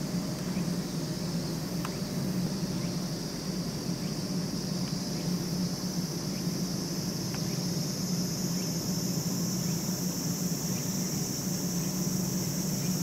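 Steady high-pitched insect chorus over a low steady hum, with a few faint clicks.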